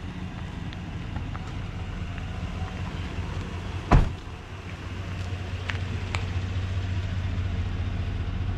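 GMC pickup truck engine running at low speed, a steady low hum, as the truck reverses a boat trailer down a ramp. A single sharp thump about four seconds in is the loudest sound.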